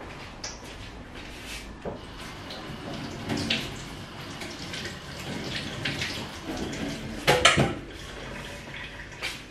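Kitchen tap running into a sink with dishes and utensils clattering while being washed. There are scattered knocks throughout and a louder double clank about seven seconds in.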